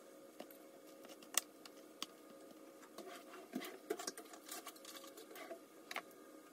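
Faint clicks, taps and soft crinkling as a small knife trims the ribs from boiled cabbage leaves and the leaves are pulled apart on a plate. A sharp tick comes about a second and a half in, and a busier run of taps and rustles about three and a half to four and a half seconds in, over a faint steady hum.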